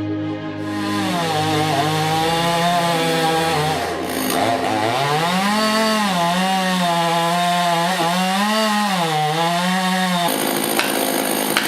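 Chainsaw engine running hard and cutting wood, its pitch repeatedly dropping and rising again as the chain bogs in the cut and the throttle picks it back up. Near the end the sound changes abruptly to a noisier rasp with sharp clicks.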